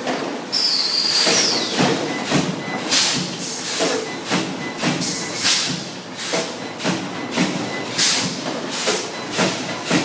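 Automatic wire mesh welding machine cycling: a regular run of sharp hissing bursts and knocks, a little more than one a second.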